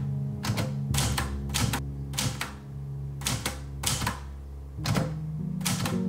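Olivetti Lettera 35 manual portable typewriter being typed on: about a dozen irregular key strikes with a short pause near the middle, over soft background music.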